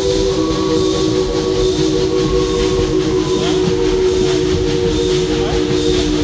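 Steam locomotive's chime whistle blowing one long, held chord of several notes, over the low rumble of the train running.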